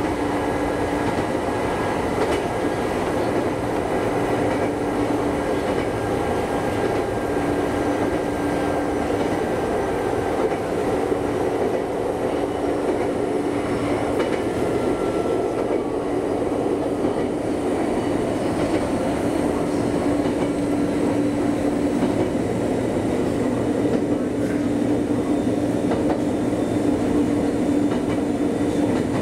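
Former Eidan 3000-series electric train running along the track, heard from inside the front cab: a steady noise of wheels on the rails, with a low hum that fades in and out several times.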